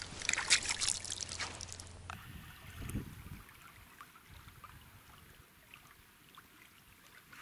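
Water splashing in the shallows as a small caught fish is put into a keepnet, for about two seconds. Then faint outdoor riverbank ambience with one dull thump.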